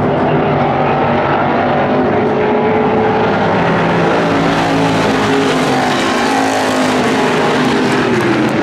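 A pack of IMCA stock cars racing on a dirt oval, their V8 engines running at full race pace with several engine notes overlapping, rising and falling as the cars go through the turns.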